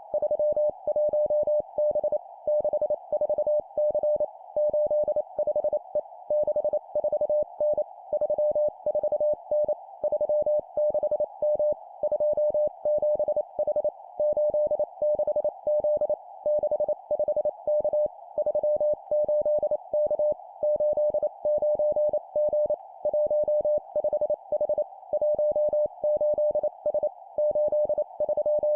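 Morse code (CW) practice tone keyed at 25 words per minute: a single steady mid-pitched beep broken into rapid dots and dashes, sent in short three-character groups of two numbers and a letter, with brief pauses between groups. A steady background hiss sits behind the tone.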